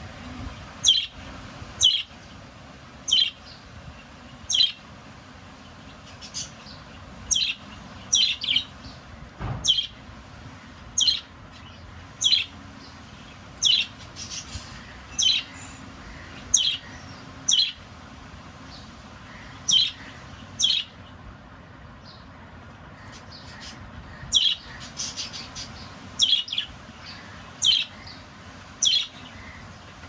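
Pet lovebirds calling: about twenty short, shrill chirps, mostly one at a time every second or two, with a few quick runs of calls and a brief lull a little after the middle.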